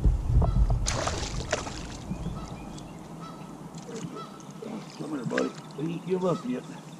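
A bird giving several honking calls in a row, between about four and six and a half seconds in. Before that, a low rumble on the microphone fades out about three seconds in.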